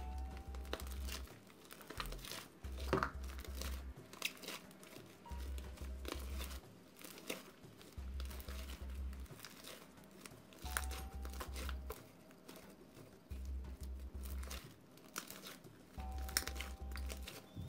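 Hands kneading and squeezing a shaving-foam slime made with glue and borax, giving many small irregular sharp clicks and crackles. Background music with a pulsing deep bass plays under it.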